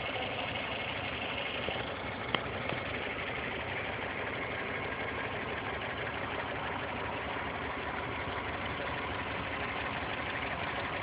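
1990 Toyota Corolla's 4A-FE 1.6-litre four-cylinder engine idling steadily with a ticking noise, which the owner has found is not valve clearance or timing, both within spec. A single sharp click about two seconds in.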